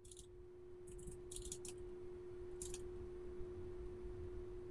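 Faint computer keyboard keystrokes typing a terminal command: a few short clicks at the start, a quick cluster about a second in and a last one near the three-second mark. A faint steady hum sits underneath.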